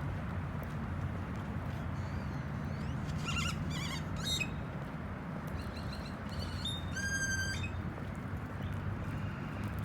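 Birds calling: a few short chirps a few seconds in, then a louder nasal call with many overtones about seven seconds in, over a steady low rumble.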